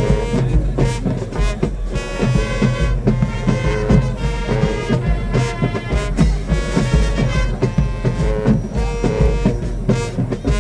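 High school marching band playing: brass horns holding stacked chords over a steady drum beat.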